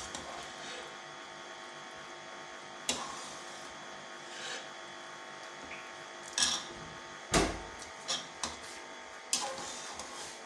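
A metal spoon knocks and scrapes now and then against a pressure cooker pot as meat is lifted out of the broth, about six short clanks, the loudest about seven seconds in. A steady hum runs underneath.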